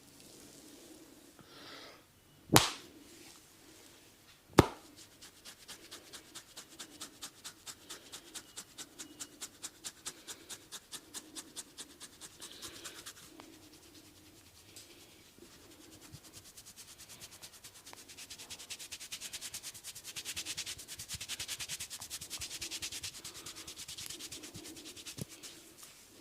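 A barber's hands working a customer's head and hair in a massage: two sharp cracks a few seconds apart near the start, then rhythmic rubbing strokes at about four a second, which later turn denser and faster.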